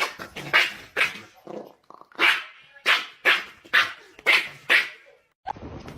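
A dog barking repeatedly, about two barks a second, stopping about five seconds in.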